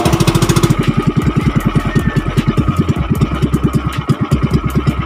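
Small motor boat's engine running steadily with a rapid, even chug, about ten beats a second, as the boat moves across the lake.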